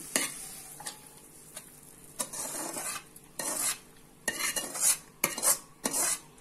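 A metal spoon scraping and clinking against a tilted kadai, pushing cooked onion and tomato masala into a steel bowl. The scrapes are short, a fraction of a second each, and they come louder and quicker in the second half.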